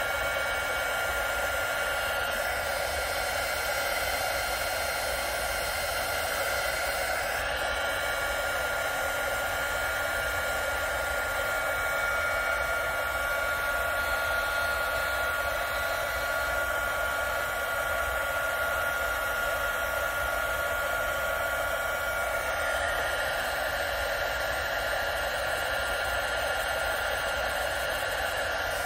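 Electric heat gun running steadily, blowing hot air to shrink heat-shrink tubing over wire splices: a continuous rush of air with a steady high whine in it.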